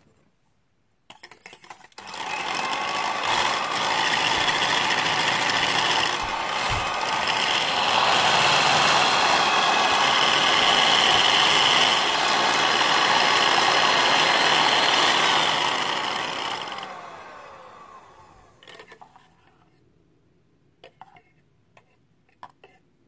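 Electric hand mixer with twin wire beaters running in a stainless steel bowl, whipping an egg batter. It whirs steadily and gets louder about a third of the way in. It then winds down with a falling pitch, followed by a few light clicks.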